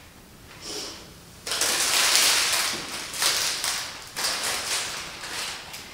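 Crinkling of the clear plastic wrap around a potted lily as the plant is picked up and carried, starting about a second and a half in and going on in several uneven rustling surges.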